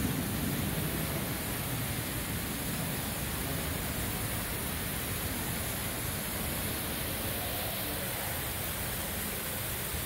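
Water pouring down an artificial rock waterfall into its pool: a steady, even rushing.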